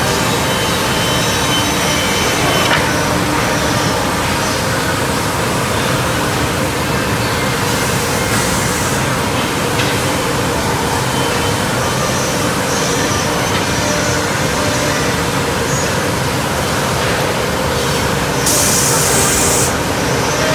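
Steady din of a woodworking production line, with a CNC jigsaw, sanding machines and conveyors running. A short hiss comes about eight seconds in and a louder one near the end.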